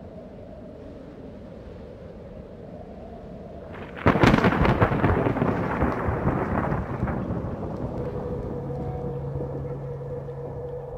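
A low steady rumble, then a sudden loud crackling crash about four seconds in that rumbles on and fades over about four seconds, like a thunderclap. A steady hum comes in near the end.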